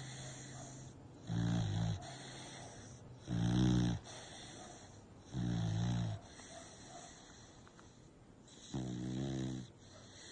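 American bully dog snoring in its sleep: four loud snores, each under a second long, about two seconds apart with a longer pause before the last one.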